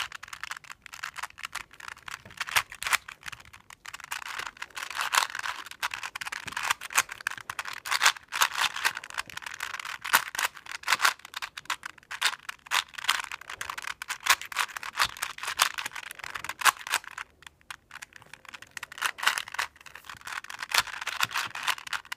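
A 4x4 Rubik's Revenge cube being turned by hand, its plastic layers clicking and clacking in quick runs of moves as it is set up into an edge-parity case, with a brief pause about three-quarters of the way through.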